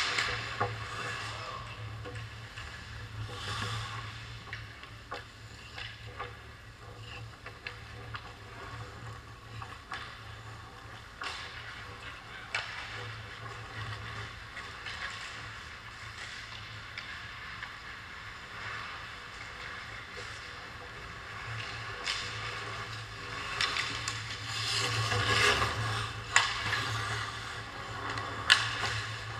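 Ice hockey play: skate blades scraping across the ice, with sharp clacks from sticks and the puck scattered through it, over a steady low rink hum. The scraping grows louder near the end as players skate in around the net.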